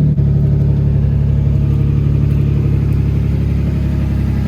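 Single-turbo Infiniti G35's 3.5-litre VQ35 V6 idling steadily just after a cold start.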